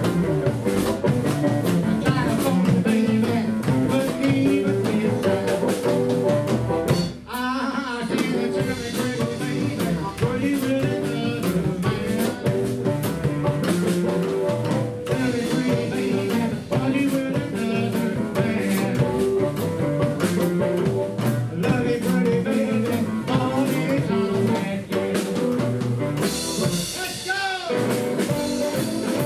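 Live vintage blues band playing: electric archtop guitar, upright double bass and drum kit with a man singing. A harmonica comes in near the end.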